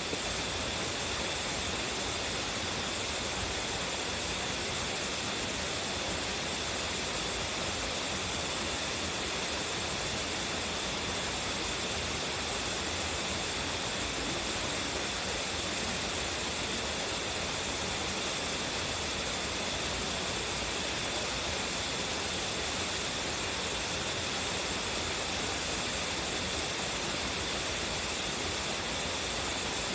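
Tsuzumigadaki waterfall in full, strong flow: a steady, unbroken rush of falling water, bright and hissy.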